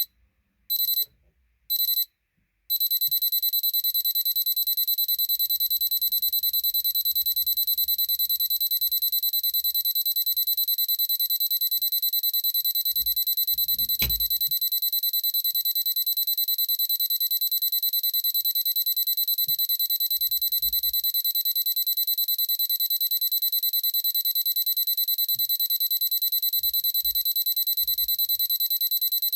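Silver Crest digital alarm clock's alarm beeping high-pitched. It starts as a few short separate groups of beeps, then from about three seconds in it turns into a continuous fast beeping that keeps going. There is a single click about halfway through.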